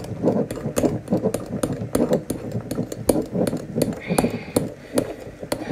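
White foam slime being squeezed and kneaded between bare hands, giving a string of wet, sticky clicks and pops several times a second as it stretches and squelches.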